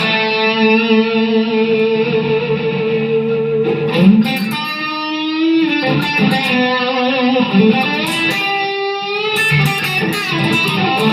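Distorted electric guitar, a 2010 Epiphone Les Paul Standard played on its bridge (lead) pickup, ringing out sustained notes and chords with a few bent notes.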